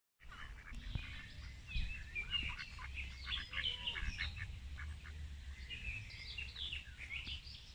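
Birds chirping and calling in many short, quick notes, with a low steady rumble underneath.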